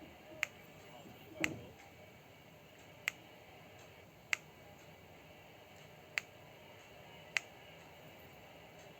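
Six sharp, short clicks at irregular gaps of about one to two seconds. The second, about one and a half seconds in, comes with a duller knock.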